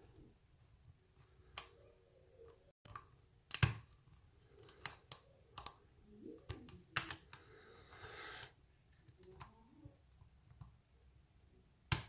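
Faint, irregular metallic clicks and ticks of a hook pick working the pins of a pin-tumbler challenge lock held under tension, some of them pins setting as they are picked.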